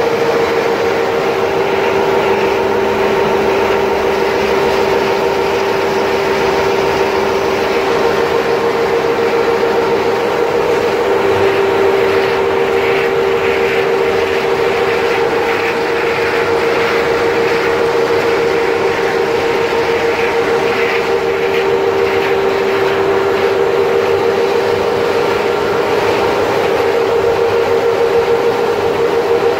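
Snack-food production line machinery running: a steady mechanical hum on two close pitches over a noisy, rattling hiss, with the rattle a little stronger midway.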